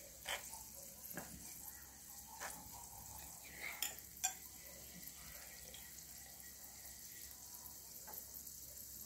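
Battered okra pieces deep-frying in oil in a small clay pot: a faint, steady sizzle. A few light clicks and scrapes from a spoon come in the first half, the sharpest about four seconds in.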